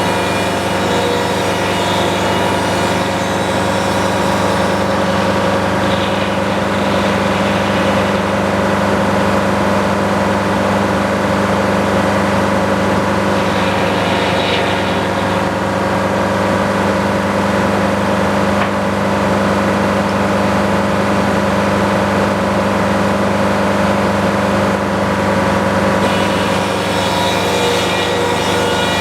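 Sawmill engine running steadily at constant speed, with an even hum and no let-up.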